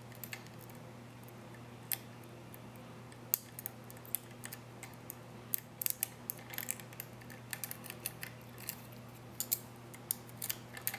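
Steel lock pick and tension wrench ticking and scraping against the pins of a Master Lock 6270 puck lock's six-pin, security-pinned cylinder as the pins are picked toward a false set. The sound is a string of small irregular metallic clicks, thicker in the second half, over a faint steady hum.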